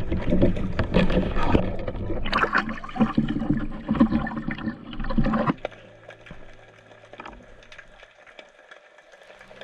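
Water splashing and bubbling right at the camera as a spearfisher breaks the surface, full of sharp crackles, for about five and a half seconds. Then it drops suddenly to a faint underwater crackle.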